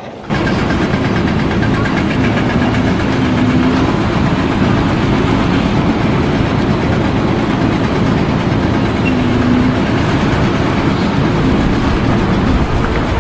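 Loud, steady running of a heavy engine or machinery, with a deep rumble. It starts abruptly and holds steady.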